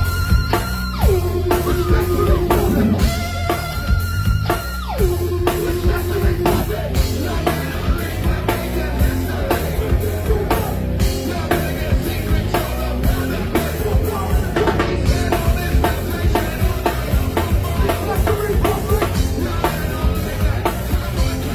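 Live rap-metal band playing at full volume: pounding drum kit, guitar and a vocalist singing and yelling into the microphone, with a few long held notes in the first several seconds.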